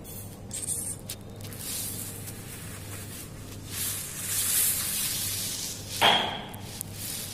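Hissing, rustling noise of something rubbing close to the microphone, then a single short kitten mew about six seconds in.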